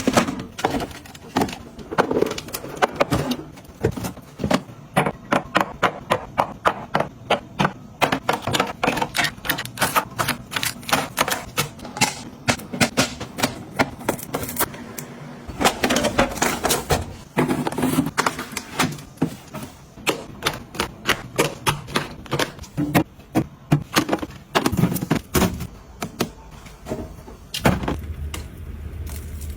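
Quick, irregular runs of clicks and taps, many a second, as small hard items and packaging are handled, opened and set down.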